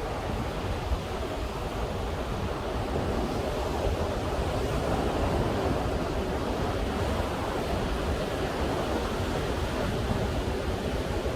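Atlantic surf washing onto a beach: a steady, unbroken rush of breaking waves, swelling slightly in the middle.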